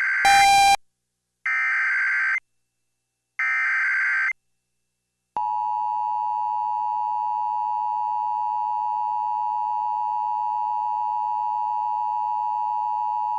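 NOAA Weather Radio emergency alert: the end of one digital SAME header data burst and two more short bursts about a second apart, then the steady 1050 Hz warning alarm tone for about eight seconds, cutting off abruptly. The data bursts encode the warning type and area, and the long tone signals that a warning such as a tornado warning follows.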